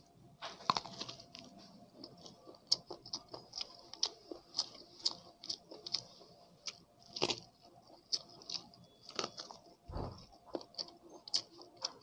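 Close-miked eating sounds of boiled sweet corn on the cob: kernels bitten off the cob and chewed, making irregular sharp wet clicks and pops a few times a second. A soft low bump comes about ten seconds in.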